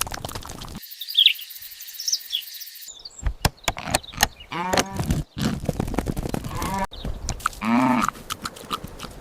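Farm animals calling, a few drawn-out calls with knocks and clatter between them. The background changes abruptly several times.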